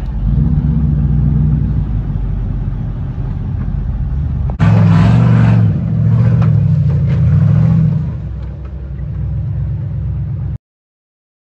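Rock buggy's engine running and revving under load as it crawls over rock ledges, getting louder and revving harder about four and a half seconds in. The sound cuts off abruptly to silence about a second before the end.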